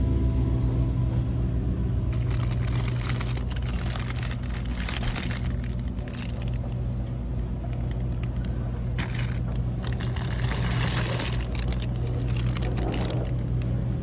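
Irregular rustling and crinkling over a steady low hum.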